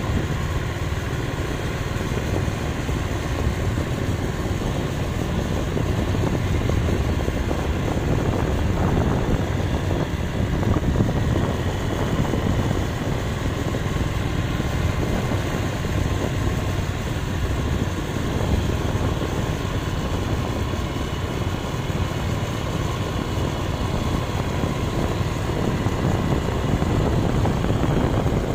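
Motor scooters riding along at a steady speed: small engines running under a steady rush of road and wind noise.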